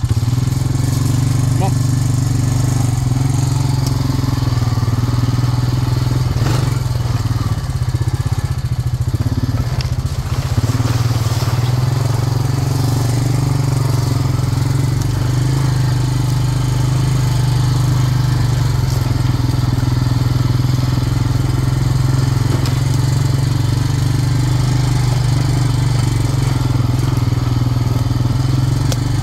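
Four-wheeler (ATV) engine running steadily while being ridden, an even low engine hum throughout.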